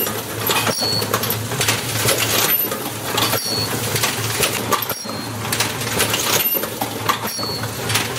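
Automatic toggle-switch assembly machine running: a steady hum under a stream of irregular metallic clicks and clacks from its pressing and inserting stations and from switch parts moving along the track, with short high chirps now and then.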